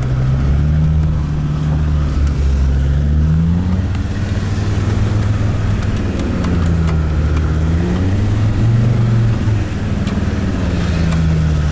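Land Rover Discovery 2's Td5 five-cylinder turbodiesel pulling at low speed over rough off-road ground, its revs rising and falling slowly as the driver works the throttle.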